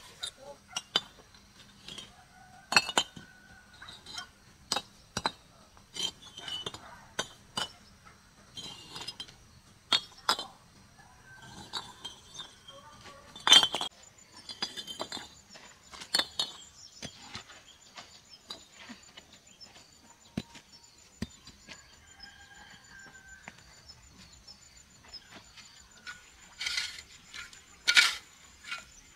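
Irregular sharp clinks and knocks of hard objects being handled and struck. The loudest comes a little before halfway, and a quick run of them comes near the end.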